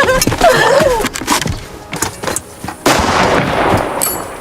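Gunfire in a war-film soundtrack: several sharp shots in the first two seconds, then a loud blast about three seconds in that rings on.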